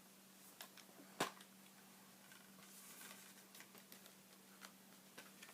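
Faint handling of a metal Blu-ray steelbook case being opened: soft rustling and a few light clicks, with one sharp click about a second in.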